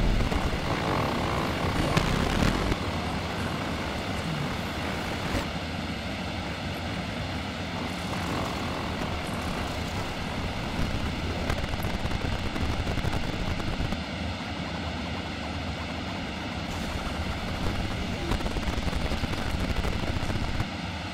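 Steady, droning electronic noise texture from a Ciat-Lonbarde Cocoquantus looper and a Korg Volca FM synthesizer, a dense rumble with faint held tones, a little louder in the first few seconds.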